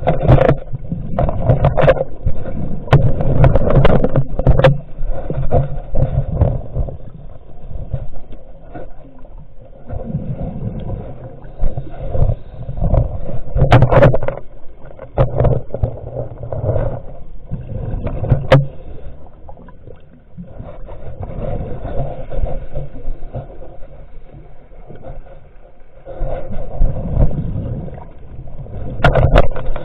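Muffled water sloshing with irregular knocks and bumps, swelling and fading in uneven waves.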